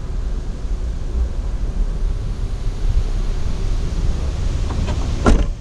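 Wind buffeting the microphone, a steady low rumble. Near the end comes a sharp thud, the loudest sound.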